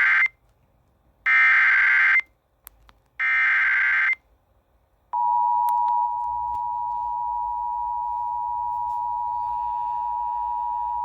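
Emergency Alert System SAME header tones encoding a Flash Flood Warning: the end of one burst of digital data tones, then two more bursts of about a second each, a second apart. About five seconds in, the steady two-tone EAS attention signal begins and holds.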